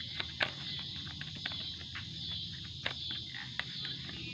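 Tarot cards being shuffled by hand: scattered soft clicks and flicks of the cards, over a steady high insect drone.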